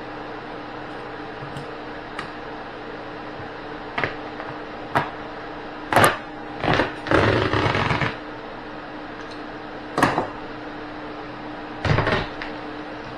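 A string of sharp knocks and clunks, about seven of them from four seconds in, with a rough scrape or rip lasting about a second in the middle, over a steady hum.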